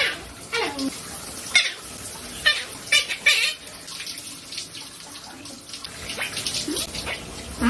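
Quaker parrot giving a string of short, sharp chirps and squawks, most of them in the first few seconds, over a steady rushing hiss.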